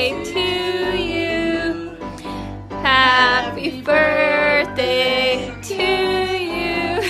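Singing: a voice sings a tune in held notes, phrase after phrase with short breaks between them.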